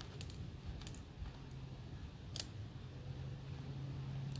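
Light metallic clicks of a Smith & Wesson .460 revolver being handled and readied to fire, a few soft ones early, a sharper click about two and a half seconds in and another right at the end.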